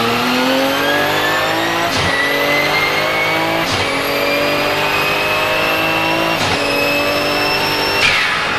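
Porsche 997 GT2 RSR's 3.9-litre twin-turbo flat-six at full throttle, heard from onboard, climbing in pitch and snapping through three quick upshifts on its sequential gearbox, with a high turbo whistle riding over the engine note. Near the end the driver lifts off and there is a short sharp release with a falling sweep, the blow-off valve venting.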